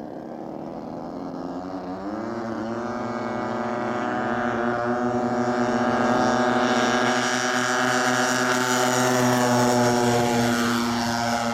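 Twin engines and propellers of a large radio-controlled C-119 model plane at full throttle on its takeoff roll: a steady droning note that rises in pitch about two seconds in and grows louder as the plane rolls closer and lifts off.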